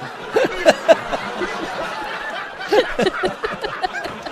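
People laughing in short bursts of chuckling, loudest about half a second in and again near three seconds in.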